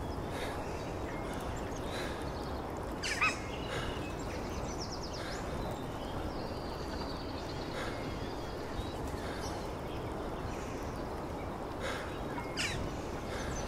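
Outdoor forest ambience: a steady hiss broken by a few short bird calls, the loudest about three seconds in and others near the end.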